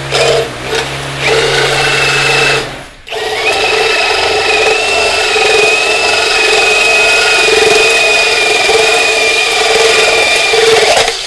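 Dekton cordless drill turning a hole saw through a galvanized steel channel. It starts slow and uneven to set the centre of the cut, stops briefly about three seconds in, then runs steadily at speed with a high whine and cutting noise for about eight seconds, stopping abruptly near the end.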